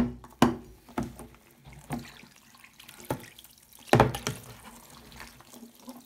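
Tap water running into a bathroom sink as a chrome rainfall shower head is rinsed of loosened limescale. Several sharp knocks from handling the shower head in the basin come through, the loudest about half a second in and about four seconds in.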